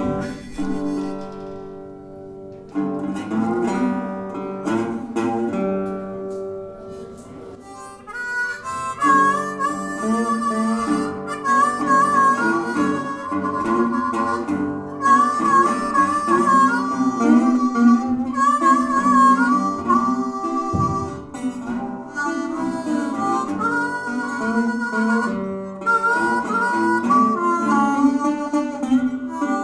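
Acoustic blues on a resonator guitar, at first alone. About eight seconds in, a harmonica cupped against a vocal microphone comes in over it, playing notes that bend and waver.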